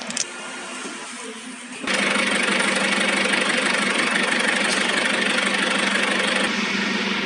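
A machine switches on abruptly about two seconds in and runs loudly and steadily, an engine-like drone with a constant low hum, easing slightly near the end.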